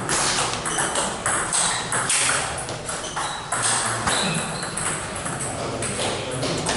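Table tennis balls clicking off bats and the table in quick exchanges. Ball clicks from other tables in the hall overlap them.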